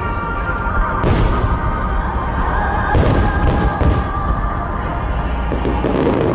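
Large aerial firework shells bursting several times, with sharp booms about a second in and again around three seconds in, over music played on loudspeakers.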